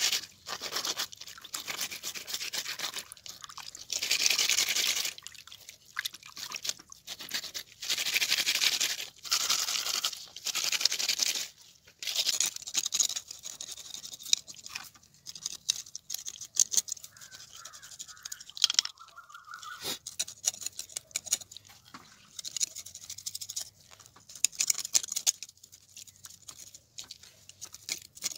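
Tilapia being scaled by hand on a rough stone slab: rasping scrapes of fish and blade against the stone. The strokes last about a second each at first, then become shorter and quicker.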